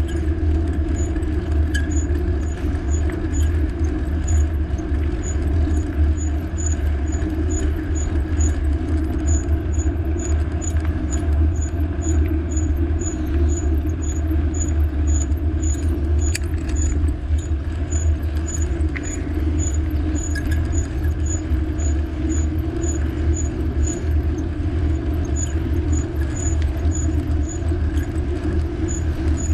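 Steady low rumble of wind and road noise while riding a bicycle, with a faint high tick repeating about two to three times a second.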